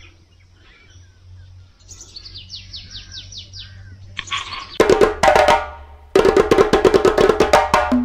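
A bird gives a quick run of short, falling chirps. About five seconds in, loud percussive music starts, with rapid wood-block and drum-like hits over pitched tones, and it dips briefly about a second later.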